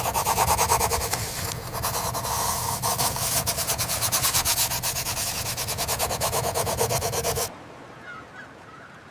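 Loud, rapid rasping clatter of about ten strokes a second that stops abruptly about seven and a half seconds in.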